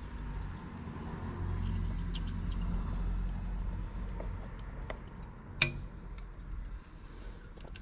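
Low rumble that swells about a second in and eases off after about three and a half seconds, with a few faint ticks and one sharp click about five and a half seconds in.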